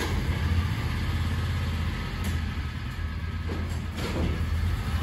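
Utility vehicle's engine running steadily at low speed as the side-by-side creeps forward, a constant low engine note.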